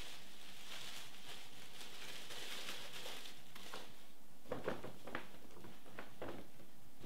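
Clear plastic bag crinkling as it is handled and unwrapped, followed by several light knocks and taps in the second half as items in the box are handled.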